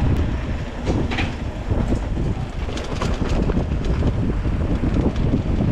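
Mountain bike rattling and rumbling over a rough road on a fast downhill, with wind buffeting the microphone.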